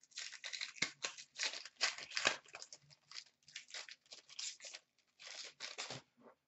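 Upper Deck hockey trading cards being slid one past another by hand: a quick run of short papery swishes and rustles that stops about a second before the end.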